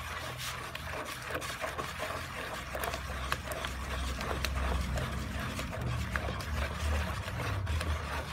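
Wooden stick stirring a watery liquid-soap chemical mixture in a plastic basin: a steady swishing and churning of the liquid, with many light knocks and clicks of the stick against the basin.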